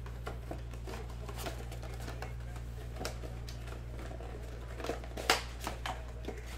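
Foil trading-card packs and packaging crinkling and rustling as mega boxes are opened and packs handled, in scattered short crackles with a sharp snap about five seconds in, over a steady low hum.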